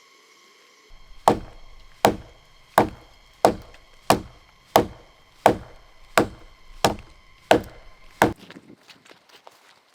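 Wood being chopped, about eleven sharp, evenly spaced strikes at roughly one every 0.7 seconds, stopping near the end.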